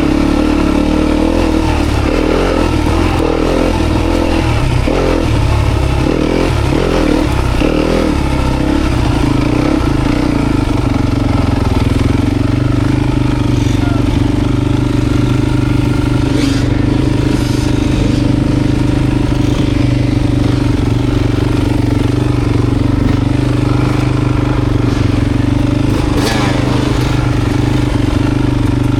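Dirt bike engine running, its pitch shifting with the throttle for the first ten seconds or so, then holding a steady note.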